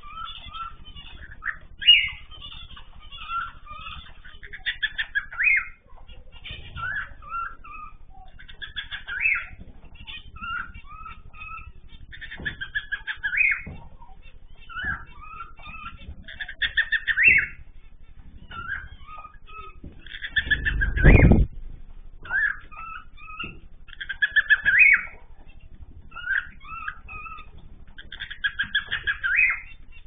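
Mixed aviary of small cage birds chirping and calling: bursts of short, high chirps and rapid chattering calls every second or two. About two-thirds of the way through there is a louder, low rumble lasting about a second.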